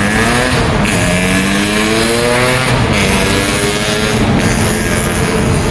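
Busy road traffic: a vehicle's engine accelerating past, its pitch climbing over the first few seconds, then settling to a steadier tone, over continuous tyre and engine noise.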